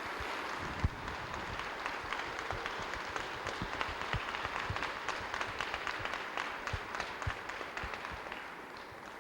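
Audience applauding, with many hands clapping at once, thinning out near the end.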